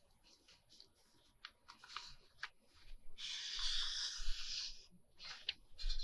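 Hands working paper and lace trim on a craft desk: a few light taps, then a rough rustling scrape about two seconds long in the middle.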